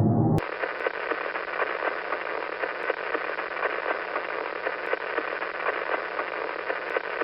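Crackling radio static with a faint steady hum underneath, the kind of hiss heard when a spacecraft's radio or plasma-wave signals are turned into sound. It cuts in sharply just after the start.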